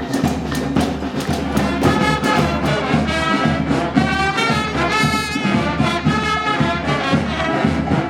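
Street brass band playing: horns such as trombones and trumpets over a steady beat.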